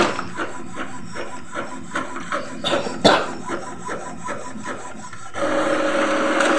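Epson L3210 inkjet printer printing a photo: the print-head carriage shuttles back and forth in a rapid rasping rhythm of about three strokes a second, with a sharper clack about three seconds in. Near the end a steady motor whir takes over as the printed sheet is fed out.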